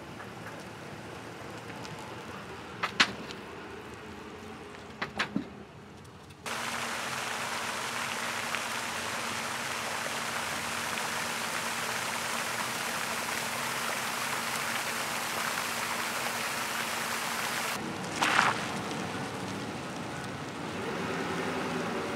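Steady, even splashing hiss of a pond's spray fountain, cutting in and out abruptly. It is preceded by a few sharp clicks over a quieter hiss and followed near the end by a car engine running.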